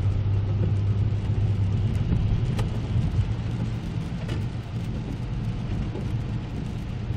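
Hyundai Equus sedan driving on a wet road, heard from inside the cabin: a steady low hum of engine and tyres under a wash of rain and spray hiss, with the windscreen wipers sweeping. A couple of short sharp clicks stand out partway through.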